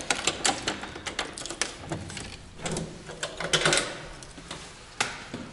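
A key rattling and clicking in a metal door lock as it is turned to unlock the door. There is a run of quick metallic clicks, a short pause, a second cluster, and a single click near the end.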